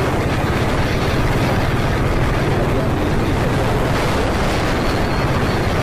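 Motorcycle engine running steadily at cruising speed, heavily covered by wind rushing over the microphone.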